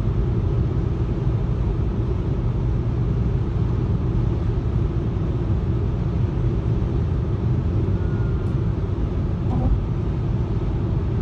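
Steady low rumble of a moving car's tyres and engine, heard inside the cabin while driving on a motorway.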